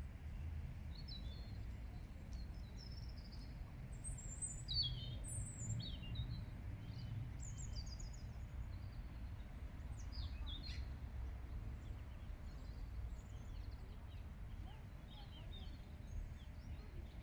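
Several small birds chirping and calling in short high notes, busiest in the first half, over a steady low rumble of outdoor background noise.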